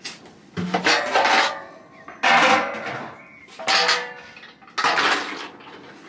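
Large metal cooking pots and lids clanking as they are handled and set down: about five separate knocks a second or so apart, each followed by a brief metallic ring.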